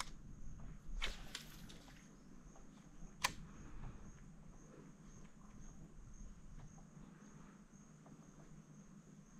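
Faint insect chirping, a thin high trill that pulses evenly throughout. Two sharp clicks sound in the first few seconds, the second the loudest.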